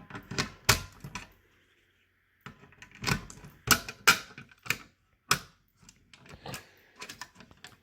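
A run of irregular sharp clicks and clacks from hard objects being handled, pausing for about a second near the start and growing fainter near the end.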